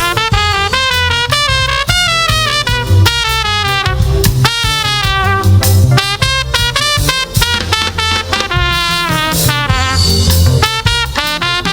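Live gospel praise band playing: a horn melody over bass guitar and drums.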